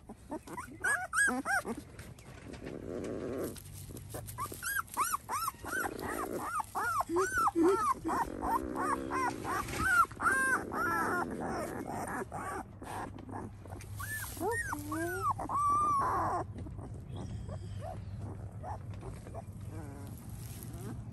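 Twelve-day-old Anatolian Shepherd puppies whining and squeaking, many short high calls in quick succession. They die down to fainter sounds after about sixteen seconds.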